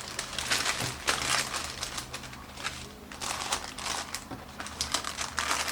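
Packaging crinkling in bursts as it is handled and unwrapped by hand.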